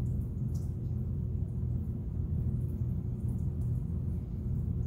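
Steady low background hum with a faint constant tone above it, and no distinct events.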